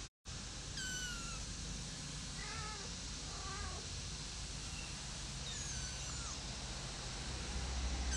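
Month-old kittens mewing: thin, high-pitched cries that fall in pitch, coming in small groups of a few at a time.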